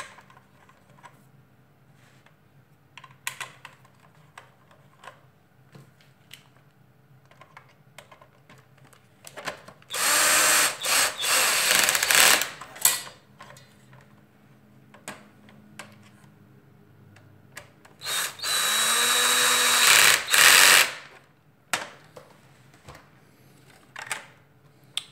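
Power screwdriver driving in the two black front screws of a vacuum cleaner housing, in two runs of about three seconds each, the second some eight seconds after the first. Light clicks of plastic parts being handled in between.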